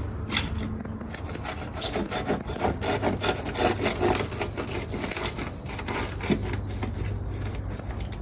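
A knife blade scraping and sawing through silicone caulk between the bus body and the back bumper, in quick rasping strokes, busiest in the middle.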